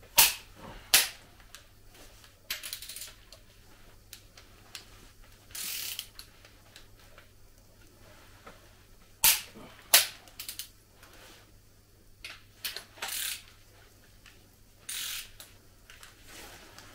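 Torque wrench tightening cylinder head bolts on a diesel engine block: sharp, loud clicks come in pairs about a second apart near the start and again about halfway in, with short ratcheting rasps between them as the wrench is reset.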